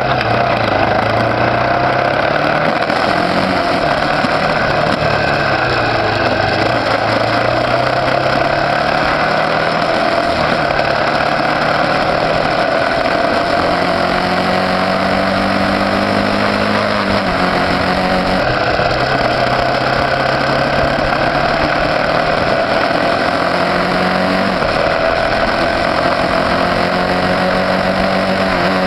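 Motorcycle engine running on the move, its pitch rising and falling with the throttle and dropping suddenly a few times, over a steady rush of wind and road noise.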